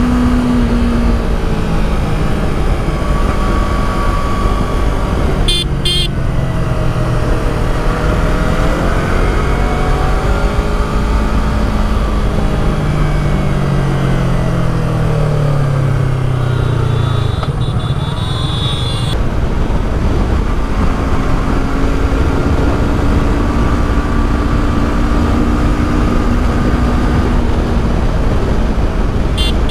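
Highway traffic: a steady road rumble with vehicles passing, one engine note dropping in pitch as it goes by about halfway through. There are a few short horn toots.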